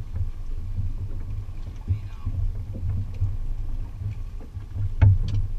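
Low rumble of a fishing boat at sea, with a couple of sharp knocks about five seconds in.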